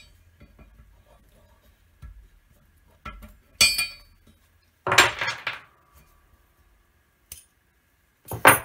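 Small brass concho-die parts and metal pins clinking and clattering against a steel bench bar as they are handled. There are a few louder metallic clanks, about three and a half, five and eight and a half seconds in; the first of them rings on briefly.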